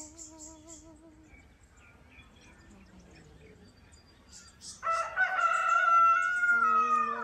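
A rooster crowing once, about five seconds in: a loud call that steps up and then holds a long final note, sagging slightly in pitch before it fades.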